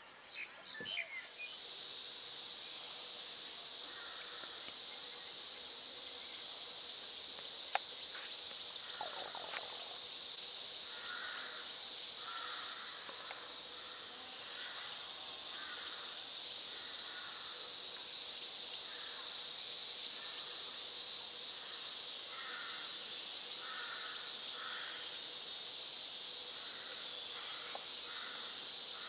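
Steady high-pitched buzzing of a dense insect chorus, its upper part dropping away about thirteen seconds in. Faint short calls repeat in the background from about four seconds in.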